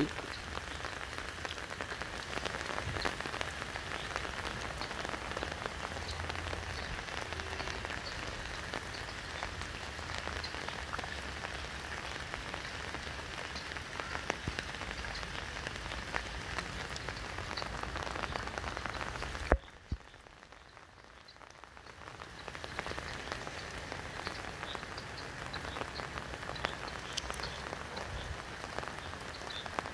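Steady rain falling on the surface of a flooded river. About two-thirds of the way in, a sharp click cuts the sound down for roughly two seconds before the rain noise comes back.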